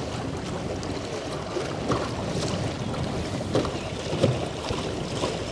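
Wind rushing over a small boat on a lake, a steady noisy rush with a few brief faint knocks or splashes.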